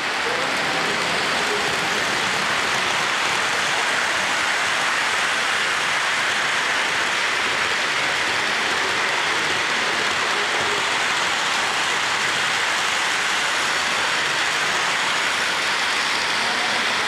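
Steady hissing rumble of O-gauge model trains rolling on three-rail track, with no pause or change.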